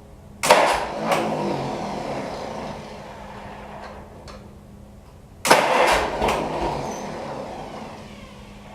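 Pony tractor engine catching suddenly and then dying away within a couple of seconds, twice, about five seconds apart: it starts but won't keep running.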